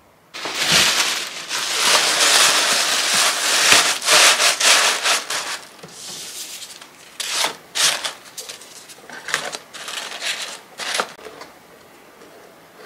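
Tissue paper rustling and crinkling as hands press it into a paperboard box: continuous for the first five seconds or so, then in short separate bursts as the box is handled and closed.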